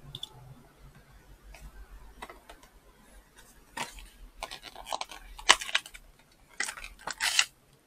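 Light clicks, taps and scrapes of drone packaging being handled, scattered through the second half.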